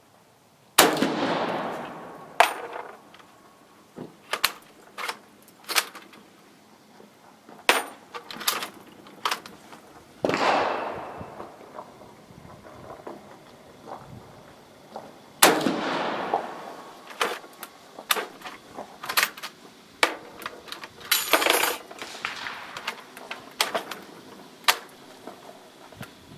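Carcano M38 6.5mm bolt-action rifle fired three times, at about one, ten and fifteen seconds in, each shot followed by a long echo. Sharp metallic clicks of the bolt being worked and smaller reports fall between the shots.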